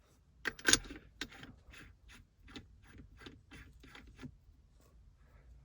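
Aftermarket shift knob being turned on a car's gear shifter, giving a regular run of light mechanical clicks, about four a second, that stop a little past four seconds in.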